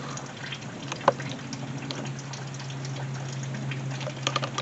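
Coolant running and trickling from the Jeep Liberty's radiator as hoses are disconnected, a steady pouring sound. A sharp click about a second in and a few light clicks near the end.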